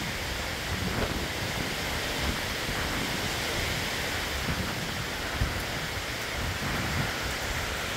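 Steady summer rain falling in a continuous hiss, with a low, uneven rumbling underneath.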